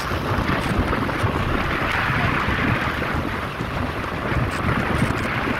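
Wind buffeting the microphone of a phone carried on a moving motorcycle, with a steady low rumble of engine and road noise underneath. The wind noise swells about two seconds in.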